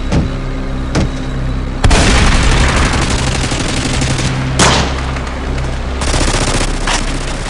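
Gunfire sound effects: a couple of single shots, then from about two seconds in a long, dense burst of automatic fire with a few louder cracks. A steady low vehicle-engine rumble runs underneath.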